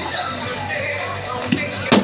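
Music playing throughout, with fireworks going off: a small bang about one and a half seconds in, then a loud, sharp firework crack right at the end.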